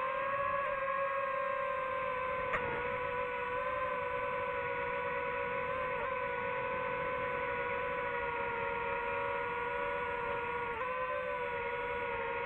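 DJI FPV drone's motors and propellers whining steadily in flight, heard from the drone itself, several tones held together with brief small dips in pitch about two and a half seconds in and near the end.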